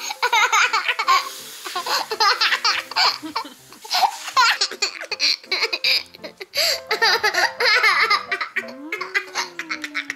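Young children laughing and giggling in high-pitched fits, again and again.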